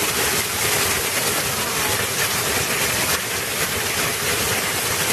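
Torrential downpour of rain, a loud, steady rush of falling water.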